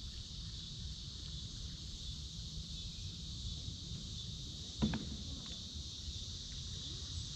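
Steady chorus of insects buzzing in the riverside trees, over a low steady rumble. One short knock comes about five seconds in.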